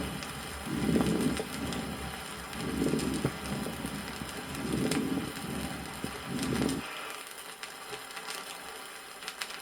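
Stethoscope recording of a pneumonia patient's breathing, with moist, sonorous, fine-bubbling rales (crackles) on inhalation, a breath about every two seconds. It stops about seven seconds in, leaving the hiss and clicks of the vinyl record's surface.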